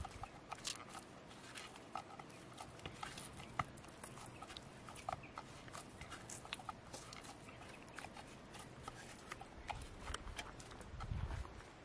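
Hands kneading and pressing a ball of oiled dal dhokli dough in a bowl: faint, scattered small squelches and clicks, with a short low rumble near the end.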